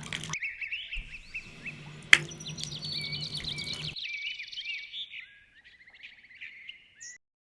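Small birds chirping and twittering in quick, rapid calls, with one sharp click about two seconds in. The background hum and hiss cut off suddenly about four seconds in, leaving only the chirps, which stop just after seven seconds.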